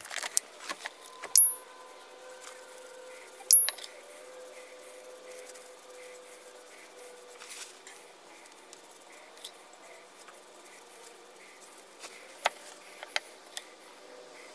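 Light, sharp clicks of a small hard object, two with a brief high ring in the first few seconds and a few fainter ticks near the end, as a bottle of bluing liquid and its applicator are handled over a plane iron on the workbench. A faint steady hum sits underneath.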